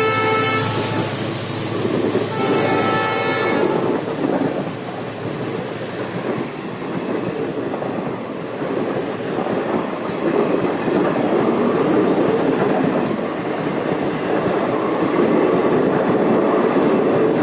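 Indian Railways express train passing: the locomotive's horn sounds twice, briefly at the start and again for about two seconds, then the coaches roll by with a steady rumble and wheel clatter.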